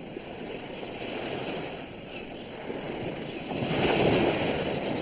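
Ocean surf washing onto a beach: a steady rush of waves that swells louder about three and a half seconds in.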